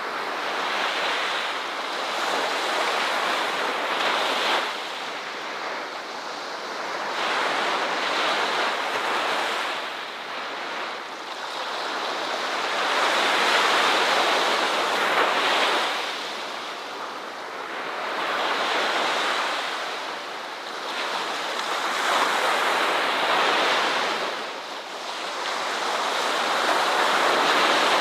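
Ocean waves breaking on a beach, the surf swelling and falling back every four or five seconds in a continuous wash.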